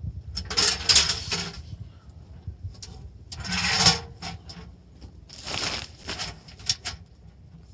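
A small sheet-metal tent wood stove being handled and set up on dry-leaf ground: three scraping, rustling bursts about a second long as it is shifted, then a few short metallic clicks near the end.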